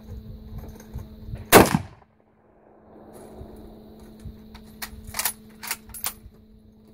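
A single scoped rifle shot about a second and a half in, the loudest sound by far. A few seconds later come several quieter sharp clicks.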